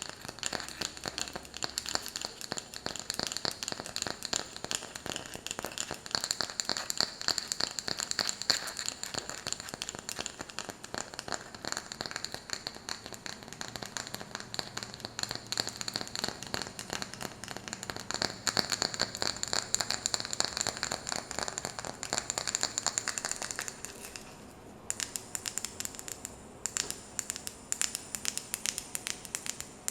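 Fast, dense tapping on a wooden lid, a rapid stream of small clicks. Near the end it pauses briefly and thins to sparser, separate taps.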